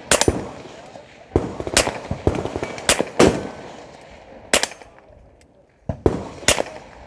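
A .22 LR pistol fired through a Bowers Group Bitty, a tiny three-baffle dry suppressor. About eight sharp shots come at an uneven pace, some in quick pairs.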